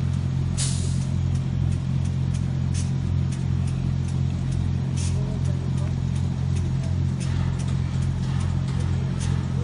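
A steady low machine hum with scattered sharp clicks throughout.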